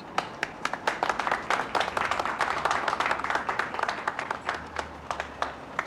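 A small group of people clapping, a dense patter of hand claps that swells in the middle and thins out near the end.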